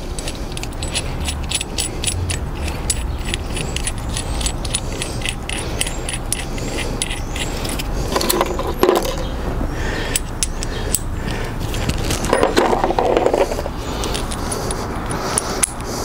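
Small metal parts of a motorcycle chain tool clicking and clinking together as they are picked out of a plastic case and fitted onto the tool, with two louder handling rustles later on. A steady low rumble runs underneath.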